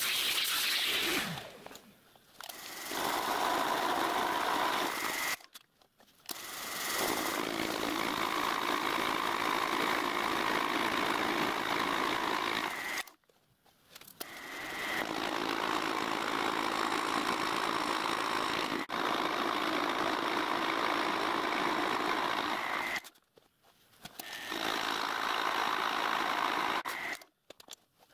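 Milling machine running as it machines a radius onto a solid cast-iron cylinder in steps: long stretches of steady machine noise broken by several short breaks.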